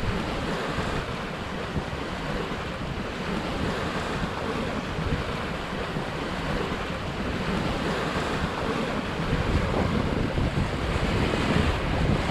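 Wind buffeting the microphone over the steady rush of water along a sailboat's hull as it sails, a continuous noise that swells and eases slightly.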